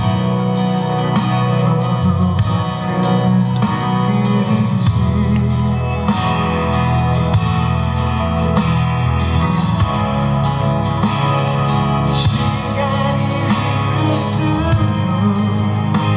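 Live rock band playing a song: electric guitar over bass and drums with a steady beat.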